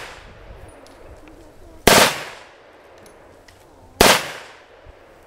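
Astra 902 machine pistol in .30 (7.63 mm) Mauser firing two short bursts about two seconds apart, each ringing off after it.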